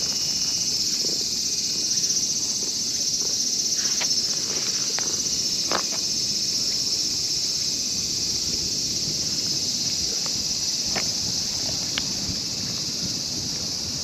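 Steady high-pitched chorus of insects, with a low rustling noise underneath and a few faint clicks scattered through.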